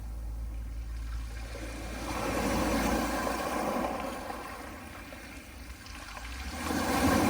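Soft sea waves washing on a pebble beach, the surge swelling twice: about two and a half seconds in, and again near the end.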